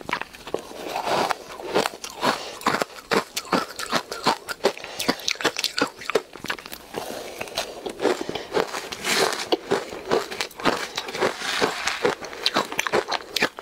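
Close-miked biting and chewing of soft, powdery ice dusted with matcha powder: irregular crunches, several a second.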